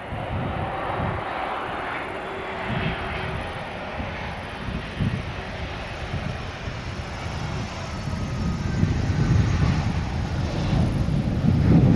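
Jet engines of an Embraer E195-E2 airliner landing: a steady whine at first, then a low rumble that grows louder over the last few seconds.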